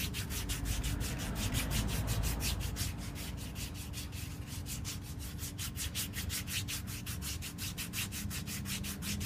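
A hand-held scrubbing block rasping dead skin off a bare heel in rapid back-and-forth strokes, several a second, with a dry scraping sound.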